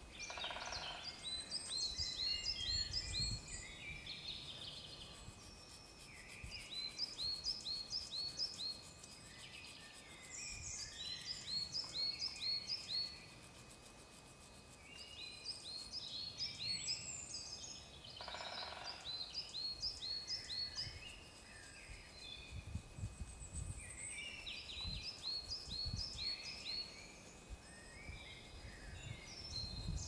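Woodland songbirds singing: short phrases of quick, high, repeated notes, one phrase every few seconds.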